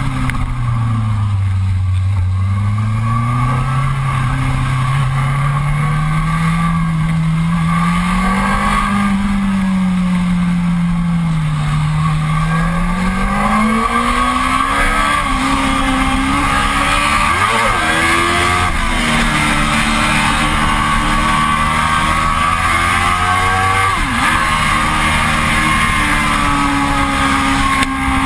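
A sport motorcycle's engine, heard from on the bike while riding fast. Its note drops in the first couple of seconds, then climbs and dips as the throttle opens and closes, and holds a steadier, higher note through the second half.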